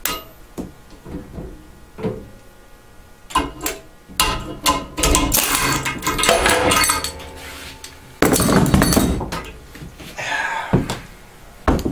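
Metal clanking and clinking as a steel three-jaw gear puller and loose parts are handled and taken off a snowblower's shaft. Scattered knocks come throughout, with two longer, louder stretches of clatter around the middle.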